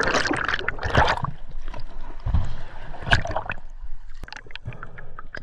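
A rush of bubbles and churning water as a freediver plunges in, loudest for about the first second. After that comes quieter gurgling and water sloshing around the camera at the sea surface, with one louder splash about three seconds in.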